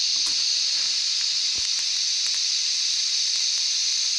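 Scratch-start TIG welding torch hissing steadily while tacking stainless steel exhaust pipe, with a few faint ticks. The cheap scratch-start welder arcs the moment it touches, so the tungsten keeps sticking to the stainless work.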